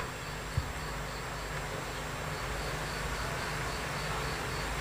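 Steady hiss and low hum from an open public-address system waiting for the reciter, with a faint high chirp repeating about three times a second. There is a small click about half a second in.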